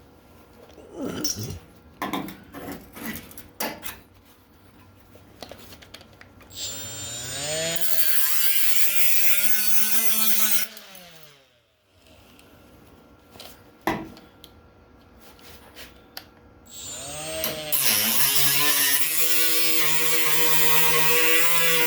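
High-speed cut-off tool cutting steel sheet off a car's rear quarter-panel patch, in two runs: a whine that rises and falls in pitch from about seven to eleven seconds in, then another that spins up around seventeen seconds in and holds steady. A few clicks and knocks come before the first run.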